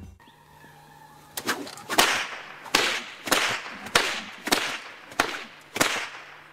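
Chinese soft whip (bian) swung and cracked in a martial-arts routine: about eight sharp cracks, each led in by a short swish, coming roughly every half to three-quarters of a second, over a faint steady low hum.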